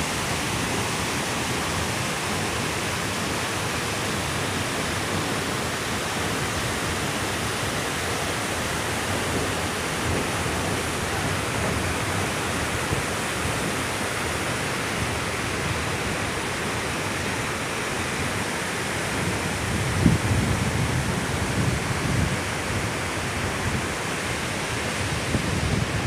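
Water rushing steadily over a masonry dam spillway and down into a rocky river, a constant even white-water noise. From about twenty seconds in, low bumps of wind buffet the microphone.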